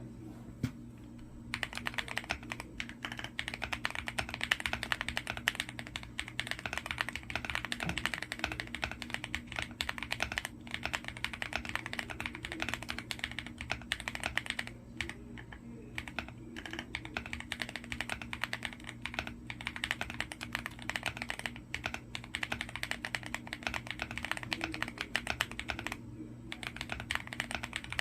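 Fast, continuous typing on an Akko MOD007 v2 mechanical keyboard with linear Akko CS Silver switches and Akko World Tour Tokyo keycaps. The key strikes start about a second and a half in, and the typing stops briefly a few times.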